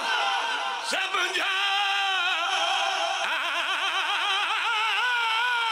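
A man singing a devotional verse in long drawn-out notes with a heavy, fast vibrato, with two short breaks about a second in.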